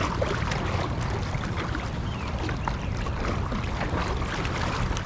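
Creek running high, its flowing water making a steady rush, with wind buffeting the microphone as a low rumble.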